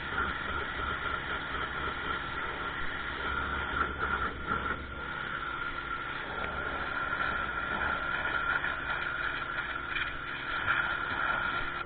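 Ryobi RY14122 electric pressure washer running while spraying water: the steady hum of its electric motor and pump under the hiss of the spray.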